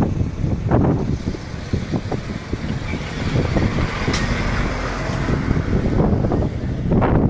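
A steady low rumble with wind gusting on the microphone, and a single sharp click about four seconds in.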